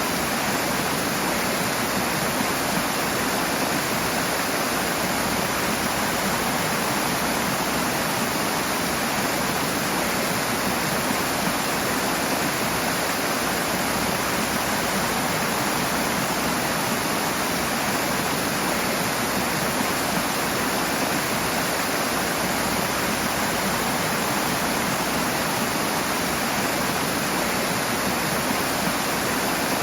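Rushing water: a loud, steady roar of fast-flowing water, unchanging throughout.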